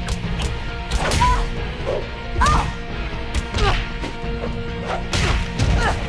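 Cartoon fight sound effects: punches and blows landing about five times, sharp and sudden, over the show's background score.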